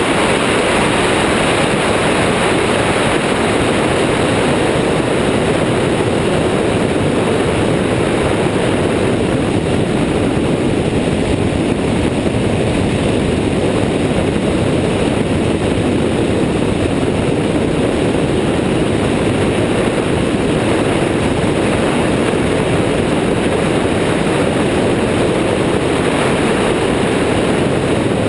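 Steady rush of wind and engine-and-propeller noise from an Airborne XT Tundra ultralight trike in cruising flight, heard through a camera mounted on its wing.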